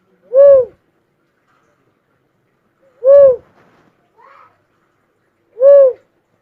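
A bird's call: a single hooting note that rises and falls in pitch, repeated three times about two and a half seconds apart.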